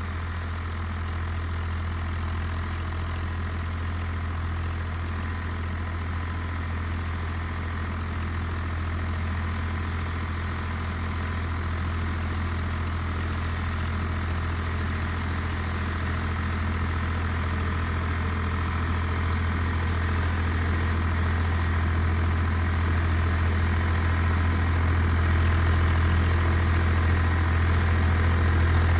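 Swaraj 855 tractor's three-cylinder diesel engine running steadily with a strong low hum, growing gradually louder; it sounds as if the tractor is running empty, without a load.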